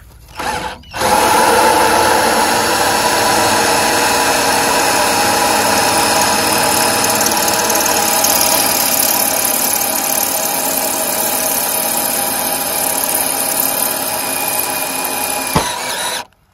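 Cordless drill with a hex nut-driver socket running steadily, driving a self-drilling screw into a cement roofing sheet. After a brief blip it starts about a second in, runs for about fifteen seconds and cuts off suddenly just before the end.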